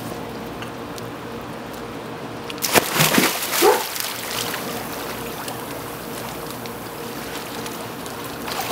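Pool water sloshing and lapping as golden retrievers paddle. About three seconds in, a burst of loud splashes, with a short cry among them.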